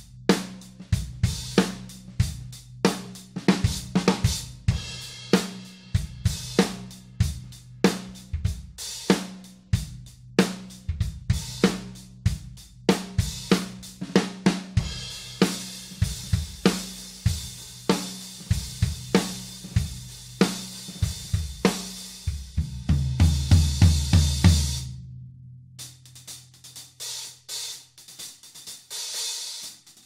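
Drum kit groove played on a Dream Cymbals hi-hat pair, a 16" Energy over a 16" Bliss, with snare and bass drum. It builds to a fast, loud fill on the low drums, which stops sharply about 25 seconds in, followed by a few soft hi-hat strokes.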